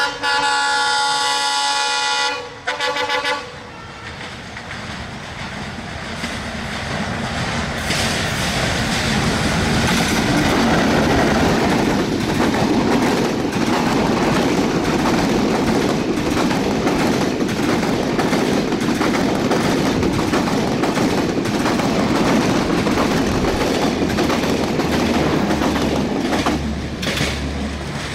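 ALCO WDM-2 diesel locomotive's multi-tone horn ending a long blast about two seconds in, then a short second blast. The locomotive and its LHB passenger coaches then pass at speed, wheels clattering rapidly over the rail joints, and the sound eases into a low rumble near the end as the train draws away.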